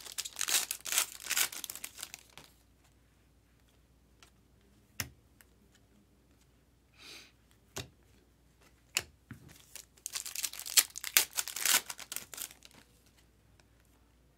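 A foil trading-card pack wrapper being torn open and crinkled for about two seconds. After that come a few light clicks as the cards are handled, and about ten seconds in there is another stretch of crinkling and rustling for a couple of seconds.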